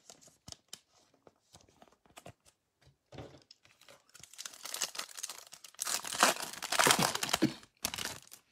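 Foil wrapper of a Topps Chrome baseball card pack being torn open and crinkled, loudest near the end. It is preceded by faint light clicks of cards being handled.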